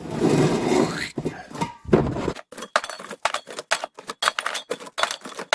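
Rustling and shuffling for about two seconds, then a quick run of light knocks and clicks: aerosol spray cans being handled and set down on a cupboard shelf.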